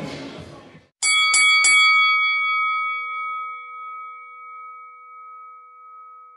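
A metal bell struck three times in quick succession, about a third of a second apart, with a long fading ring after the last strike. Before it, crowd noise and music fade out.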